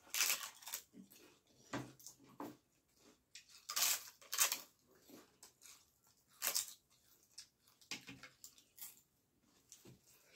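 Crisp papad being bitten and crunched up close, several loud crunches with chewing and wet mouth sounds in between.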